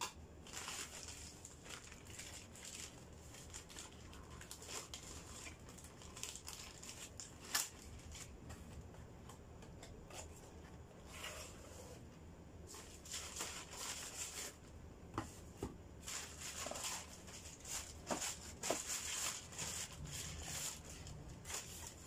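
Plastic courier mailer bag crinkling and rustling as it is cut open with scissors and emptied by hand, with scattered sharp clicks and taps as small boxes are handled and set on a wooden table.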